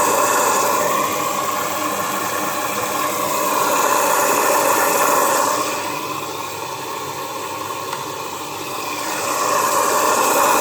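Hoover Dynamic washing machine filling: water running in through the dispenser drawer, a steady rushing hiss that softens for a few seconds past the middle and swells again near the end.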